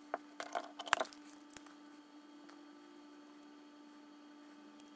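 A few light metallic clicks and taps as a magnet is handled and set inside a pump motor's metal casing, the loudest about a second in. After that only quiet room tone with a faint steady hum.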